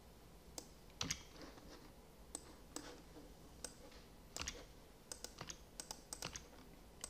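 Irregular clicks of a computer mouse and keyboard keys, single clicks at first and a quicker run of them in the second half.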